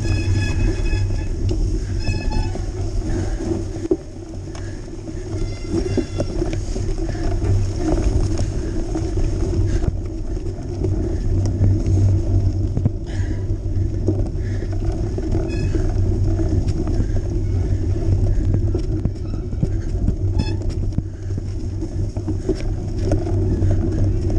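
Steady rumble of a cyclocross bike riding over a rutted, muddy snow track, tyre and frame noise close to the microphone, briefly quieter about four seconds in.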